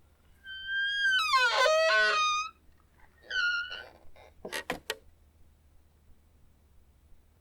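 Squeaky door hinge creaking as a door is slowly opened: a long, wavering creak that bends down in pitch, a shorter creak about three seconds in, then a few sharp clicks near five seconds.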